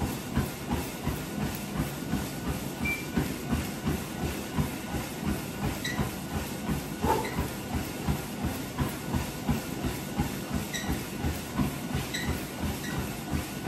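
Treadmill in use: the motor and moving belt give a steady hum and hiss, and feet strike the deck in an even, repeating rhythm of footfalls.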